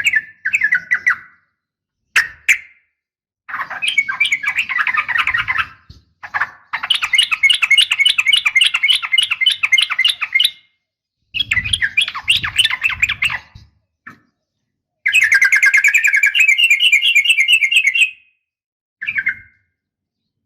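Yellow-vented bulbuls (trucukan) calling in bursts of fast, chattering notes, some short, others long unbroken rolls of three to four seconds, with brief pauses between them.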